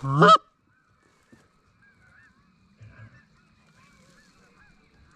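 A single loud goose honk right at the start, then faint, repeated honking of geese at a distance.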